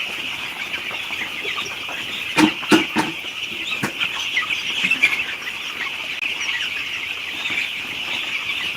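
Poultry chicks cheeping in a dense, continuous high-pitched chorus, with a few sharp knocks about two and a half to four seconds in.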